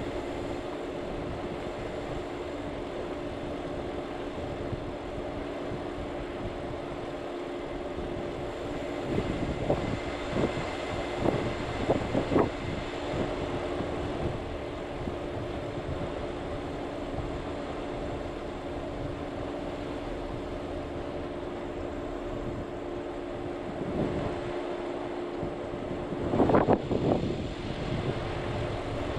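Vehicle driving on a dirt road with a steady engine and tyre drone. A cluster of louder thumps and rattles comes about ten seconds in, and another near the end.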